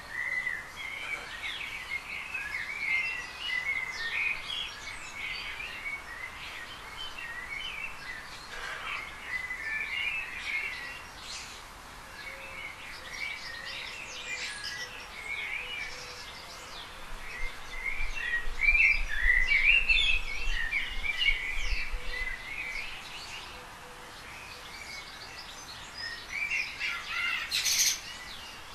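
Small garden birds singing, many short chirps and quick warbling phrases overlapping, with a low rumble underneath for a few seconds about two-thirds of the way through.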